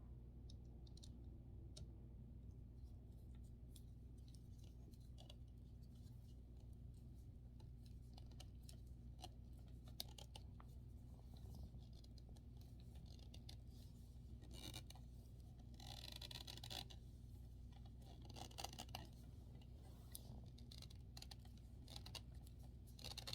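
Faint scattered clicks and short scrapes of drying-rack parts being handled as a small screw is turned into a rod, over a steady low hum. A longer scratchy rasp comes about two-thirds of the way in.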